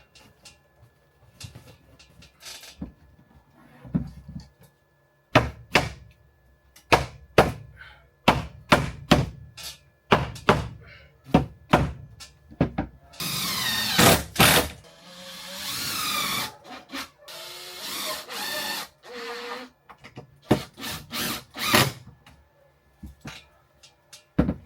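Wooden ceiling panels being worked into place: a run of sharp knocks and taps on wood, then a power tool runs for several seconds in the middle, wavering in pitch, followed by more knocks near the end.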